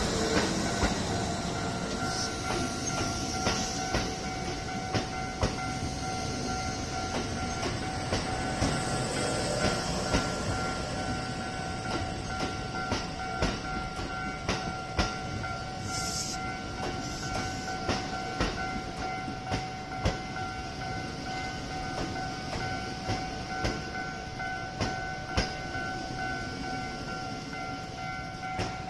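Kintetsu electric train running, its wheels clicking over the rail joints, with a steady high hum under the clicks.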